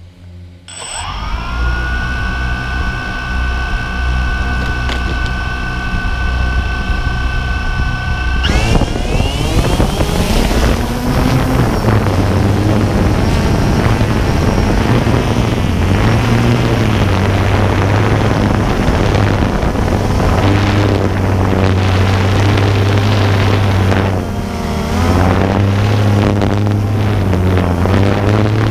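DJI Phantom 2 quadcopter motors spinning up about a second in and holding a steady whine. At about eight and a half seconds they throttle up sharply for takeoff, then run loud and noisy with the pitch wandering in flight. Around twenty-four seconds the pitch briefly drops and rises again.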